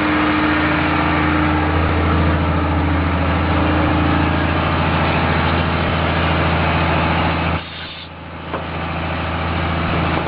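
A boat's engine running steadily at cruising speed, with a constant hum and a rushing noise over it. The sound drops away for about a second roughly three quarters of the way through, then returns.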